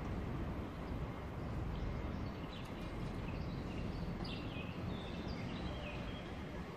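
Steady low rumble of street ambience, with a bird giving several short, falling chirps in the middle.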